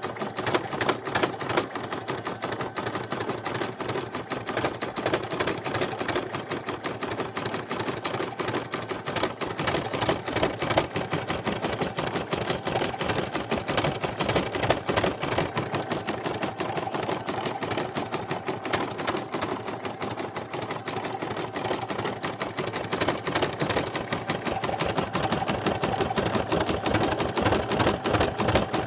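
Brother SE1800 embroidery machine stitching a satin-stitch border around fabric appliqué, its needle running in a fast, steady rhythm of rapid clattering strokes.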